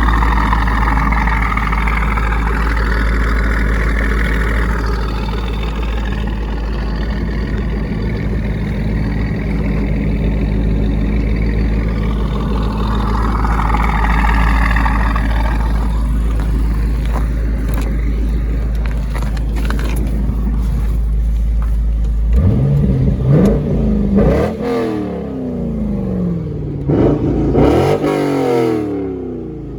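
C5 Corvette Z06's LS6 V8 through Corsa Extreme mufflers, running with a steady low drone, then revving up and back down twice in the last several seconds.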